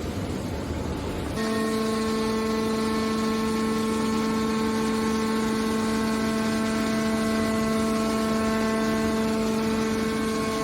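Hydraulic scrap metal baler running. A rough, noisy machine rumble cuts abruptly, about a second and a half in, to a steady, unwavering pitched hum with a stack of overtones, typical of the baler's motor and hydraulic pump.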